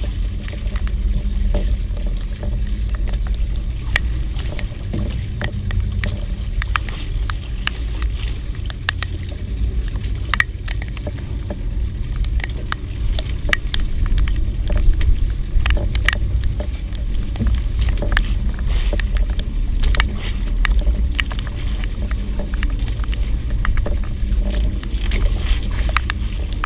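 Steady low rumble of a small fishing boat at sea, with many scattered, irregular sharp ticks throughout.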